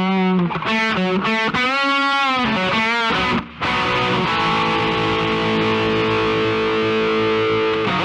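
Intro music on distorted electric guitar: a few short held notes, a brief break about three and a half seconds in, then a long sustained chord.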